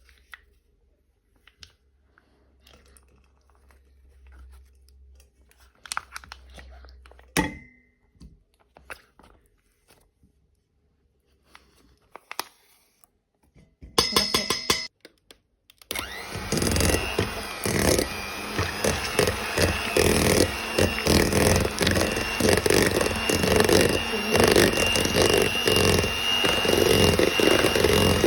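Quiet kitchen handling sounds with a sharp knock, then, from about halfway in, an electric hand mixer running steadily in a bowl with a steady high whine and a rhythmic rattle of the beaters.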